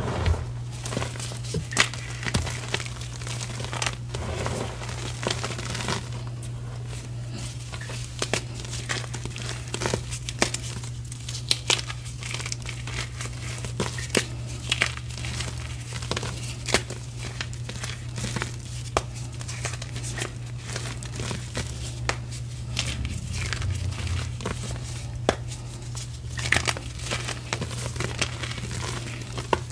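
Reformed gym chalk crumbling and snapping between fingers: a dense, irregular run of crisp crunches and crackles as the pressed chalk pieces break down into powder.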